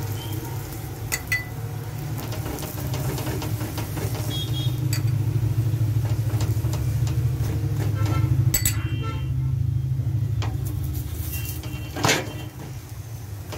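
A metal ladle scraping and clicking on a hot tawa as oil is spread over a paratha, over a steady low hum. About twelve seconds in, a wooden spatula flips the paratha with a single sharp knock, the loudest sound.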